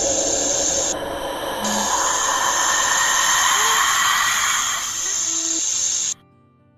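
A loud, drawn-out snake hiss sound effect that cuts off abruptly about six seconds in, leaving faint music.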